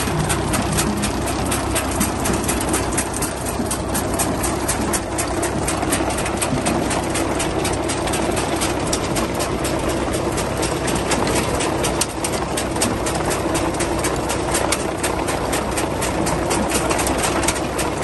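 Tractor-drawn potato harvester running, its rod-link web conveyors and rollers rattling and clicking without a break as they carry potatoes and soil, over the steady drone of the John Deere 5045 tractor's three-cylinder diesel engine.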